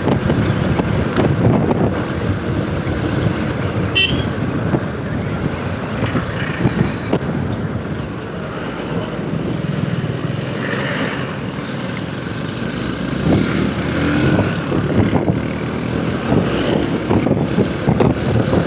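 Motorcycle riding on the road: the engine running with wind and passing traffic, heard through a helmet-mounted wireless mic with noise cancellation on. A brief high sound about four seconds in.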